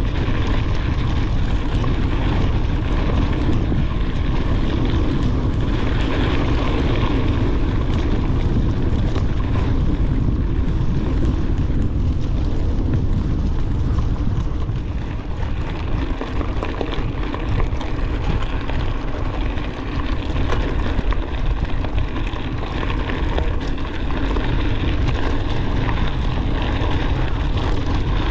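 Wind rushing over an action camera's microphone on a moving mountain bike, mixed with the bike rattling and knocking over rough trail. The knocks and jolts grow more uneven between about 15 and 24 seconds in.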